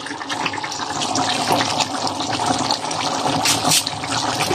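Thick tomato-based stew bubbling at a steady boil in a wide pan, reducing to thicken its sauce.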